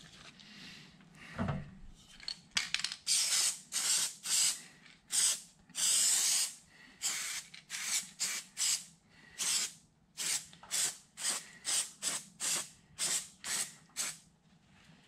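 Aerosol can of Loctite spray adhesive hissing in many short bursts, about two a second, starting a couple of seconds in and stopping near the end.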